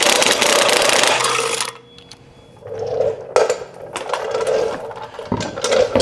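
Cordless impact wrench hammering a wheel's lug nuts loose for about the first second and a half. Shorter bursts and metallic clinks follow as more nuts are spun off and the tool is set down.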